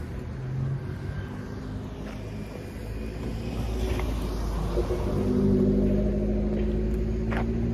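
A motor vehicle engine running near the street, a low rumble that grows louder about halfway through and then holds steady.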